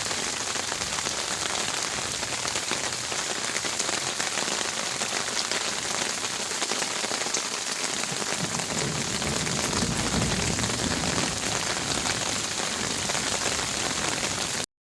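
Heavy rain pattering steadily on garden leaves, with a low rumble swelling and fading around the middle. The sound cuts off abruptly near the end.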